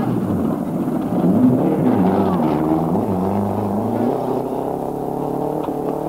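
Renault 11 Turbo rally car's turbocharged four-cylinder engine revving up and down as the car corners on gravel, then holding steady revs from about halfway through as it drives off.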